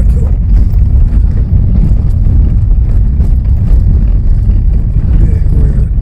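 A car driving on a mountain road: a loud, steady low rumble of engine and road noise.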